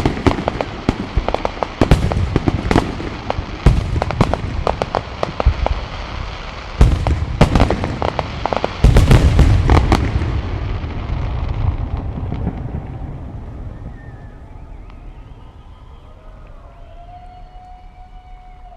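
Aerial fireworks: a dense barrage of bangs and crackling, with the loudest, heaviest booms a little past the middle. Then the bursts stop and the rumble fades away, leaving a few faint long tones.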